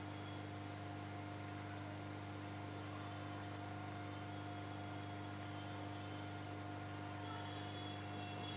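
Faint steady electrical hum with a light hiss underneath: mains hum in the recording, with nothing else happening.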